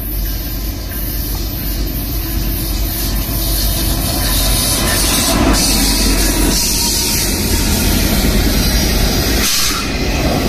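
Three Norfolk Southern SD60E diesel-electric locomotives passing close by, their engines' rumble and a loud rushing noise growing over the first few seconds and then staying loud as the units go by.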